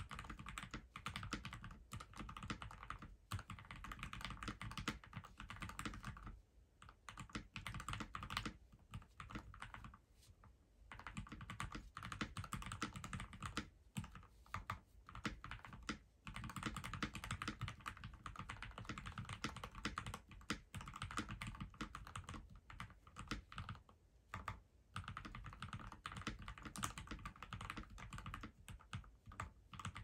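Typing on a modded FL-Esports MK870 mechanical keyboard fitted with Aquaking V3 switches and Keysterine keycaps: quick, continuous keystroke clicks, with a few brief pauses.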